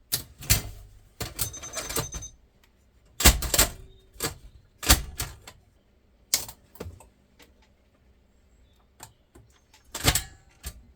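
A VHS cassette going into an Akai VS-5 front-loading video recorder: the loading mechanism clunks and clicks in a string of separate knocks, busiest in the first couple of seconds, then with single heavier clunks spread through the rest.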